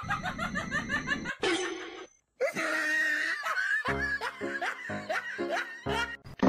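Laughter over background music, with a brief drop-out about two seconds in.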